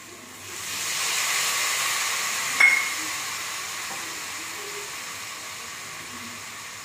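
Sugar water poured into a hot kadai of frying curry vegetables and paneer, hissing and sizzling loudly as it hits the hot oil, then slowly dying down. A single sharp metallic clink rings out about two and a half seconds in.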